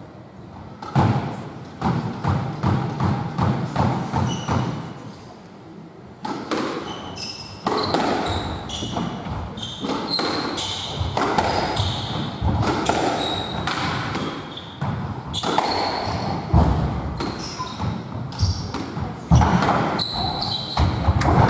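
Squash rally in a glass-backed court: the ball hitting rackets, walls and the floor, with many short high squeaks from shoes on the wooden floor and thudding footsteps, the squeaks coming thick and fast from about six seconds in.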